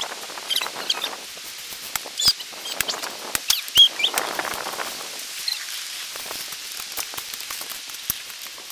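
Shovel and pick digging into dirt: scraping of soil and repeated sharp knocks of the tool blades striking the ground. Short bird chirps are heard in the woods several times, one of them with the loudest knock just under four seconds in.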